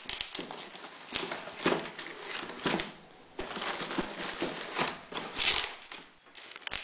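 Plastic bag crinkling and cardboard box rustling in irregular bursts with a few light knocks, as the bagged foam fuselage is worked out of its box.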